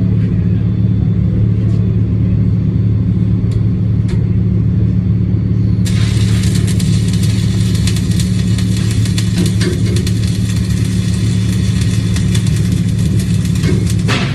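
A steady low machine hum throughout. About six seconds in, a welding arc strikes and keeps up a dense crackling hiss.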